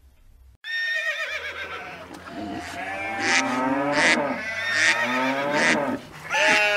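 Recorded farm animal calls, mooing and bleating, starting about half a second in and going on almost without a break, with a short dip near the end.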